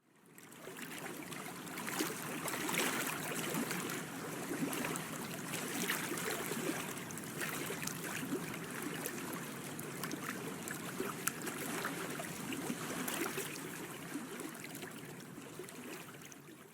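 Water lapping and splashing, with many small splashes and drips over a steady wash. It fades in at the start and fades out near the end.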